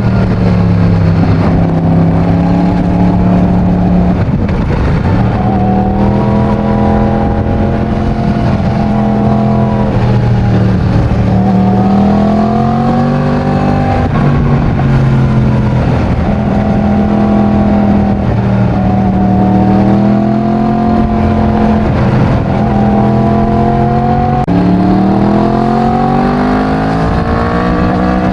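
Yamaha MT-10's crossplane inline-four engine through its stock exhaust, ridden under way. Its pitch climbs and then drops sharply several times as the bike accelerates and shifts up through the gears.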